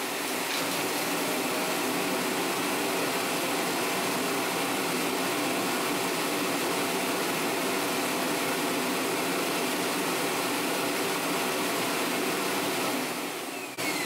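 iHome AutoVac Nova self-empty base running its suction motor, emptying the robot vacuum's dustbin into the base. A steady loud whoosh with a hum that cuts off near the end and winds down.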